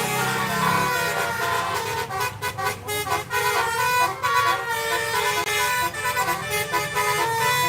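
Bus 'telolet' multi-tone air horn playing a quick melody, its pitch jumping from note to note with sharp breaks between notes.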